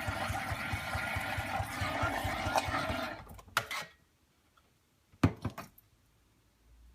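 Steam wand of a Saeco Incanto Classic espresso machine hissing over the machine's rapid pump pulsing, which she judged by its sound was not steaming properly. It cuts off about three seconds in, followed by a few sharp clicks and knocks.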